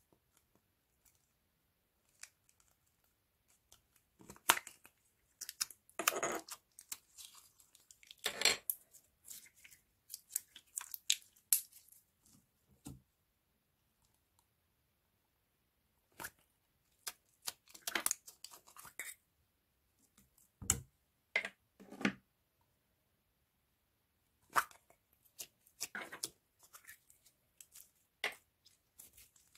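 Hands working store-bought slime: sticky crackling, tearing and clicking sounds that come in three clusters, with quiet pauses between them.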